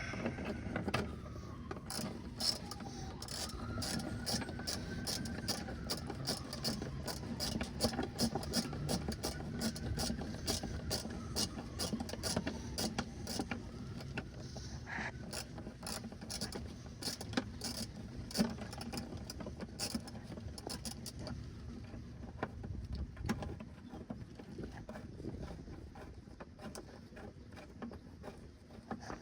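Hand ratchet wrench clicking in quick runs as the bolts holding a truck mud flap are tightened down. The clicks thin out toward the end.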